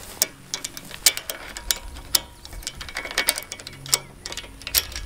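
Chain walker (lever chain tensioner) being worked along its chain to stretch a fence: a series of sharp, irregular ratchet clicks and chain-link clinks as the tension is taken up.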